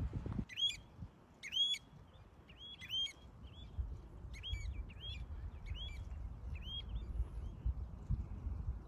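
A small bird chirping repeatedly: short, sharp chirps that rise then drop, about once a second, over a low rumble.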